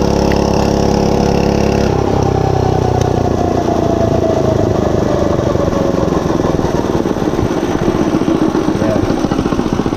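Monster Moto 105 mini bike's small single-cylinder four-stroke engine running steadily at high revs. About two seconds in it comes off the throttle, and the revs fall over the next few seconds to a slow, pulsing run.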